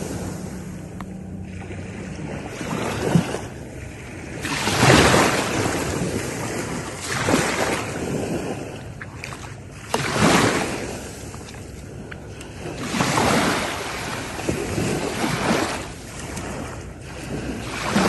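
Ocean waves breaking on a shore, the surf surging and falling back every two to three seconds, with sharper crashes about five and ten seconds in.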